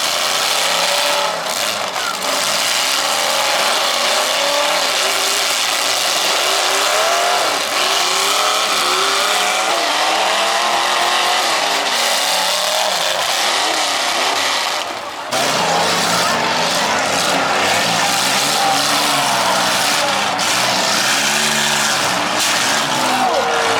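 Several combine harvesters' engines running hard together, their pitches rising and falling as they rev. There is a brief dip in the noise about fifteen seconds in.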